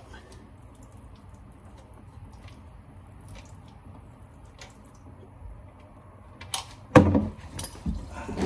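Faint clicks while the oil drain plug is turned out by hand, then about seven seconds in hot engine oil from the 6.7 L Power Stroke diesel's oil pan gushes into the plastic drain pan below, splashing loudly and unevenly.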